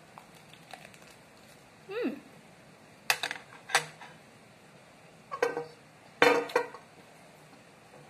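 Close-miked eating: crisp crunches of a fresh lettuce leaf being bitten and chewed, mixed with sharp clinks of a fork against a ceramic bowl. These come in a few short clusters, the loudest about three and six seconds in.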